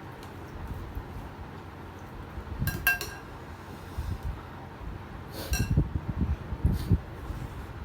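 Cutlery clinking against dishes: two sharp ringing clinks about three seconds apart, with low knocks and rustles of eating and handling between them.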